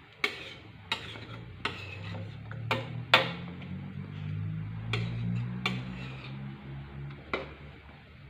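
A ladle or spatula stirring a large cooking pot of chicken in coconut milk, knocking against the pot about eight times at uneven intervals, the loudest just after three seconds in. A low steady hum runs underneath from about two to seven seconds in.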